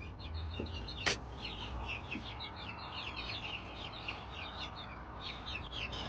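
Small birds chirping, many short quick calls overlapping, with a single sharp click about a second in.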